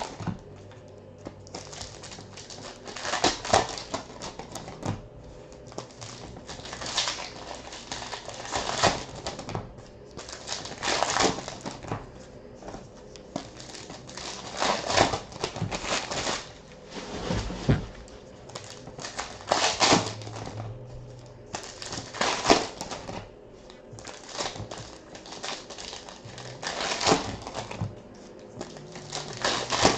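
Baseball card packs being torn open and the cards handled: a crinkling, rustling sound of wrappers and card stock that comes again every two to three seconds.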